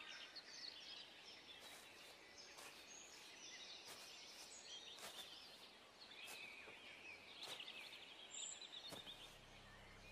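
Faint woodland birdsong: several small birds chirping and trilling, with scattered soft clicks. Low music begins to swell in near the end.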